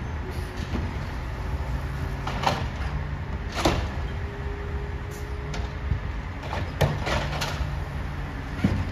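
Peterbilt 320 garbage truck running while its automated side arm lifts a trash cart, dumps it into the hopper and sets it down. Several sharp knocks, the loudest about three and a half and about seven seconds in, as the cart bangs at the top of the lift, with a steady whine between them.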